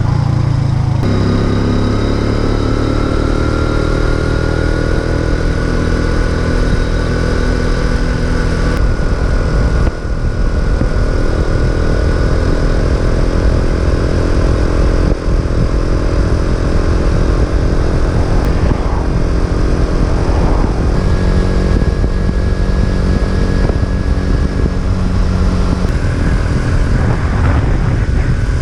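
Racer Alpha RC50 moped's small single-cylinder engine under way, its pitch climbing over the first few seconds as it accelerates and then holding at a steady cruise, with wind rushing over the microphone.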